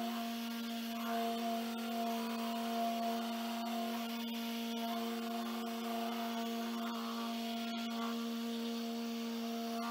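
Rupes dual-action polisher running steadily, its foam pad rubbing polish over freshly painted car body panel: an even motor hum with a whirring, rubbing hiss. This is the final polishing pass to take the last scratches out of the new paint.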